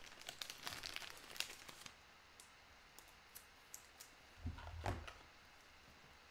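Trading cards and their packaging handled by hand: quick crinkling and light clicks for the first two seconds, a few single ticks, then a soft low thump about four and a half seconds in.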